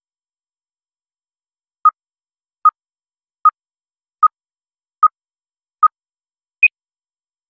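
Film-leader countdown beeps: six short electronic beeps evenly spaced a little under a second apart, then a seventh beep at a higher pitch, with silence between them.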